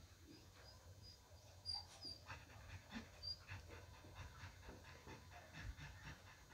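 Small dogs panting faintly: soft, quick breaths over a very quiet background.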